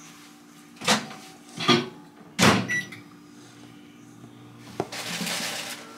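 Spatula working a butter and cake-mix crumble in a stainless steel mixing bowl: three loud strokes against the bowl in the first half, then a softer, hissing scrape near the end.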